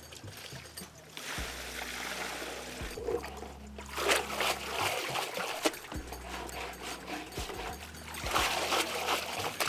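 Water splashing and draining as jute leaves are washed in a plastic colander in a basin of water: water is poured over them, then the colander is dipped and lifted, with louder splashes about four seconds in and again near the end.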